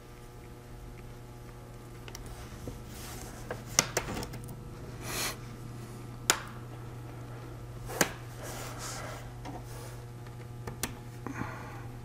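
A few sharp clicks and short scraping rustles from a small Phillips screwdriver tightening the screws in a laptop's aluminium bottom cover, over a steady low hum.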